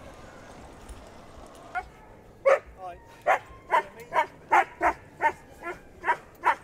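Siberian husky barking and yipping over and over, starting about two seconds in, with short sharp barks coming two to three a second.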